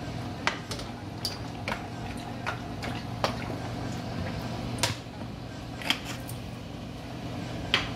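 Cooking oil poured from a plastic bottle into a nonstick frying pan, with scattered soft glugs, clicks and knocks of the bottle and pan, over a steady low hum.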